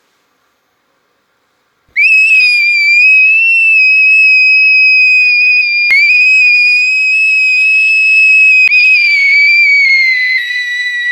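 A loud, high-pitched whistle tone that starts about two seconds in and is held steady for about nine seconds. It is broken by two short clicks and sags slightly in pitch near the end.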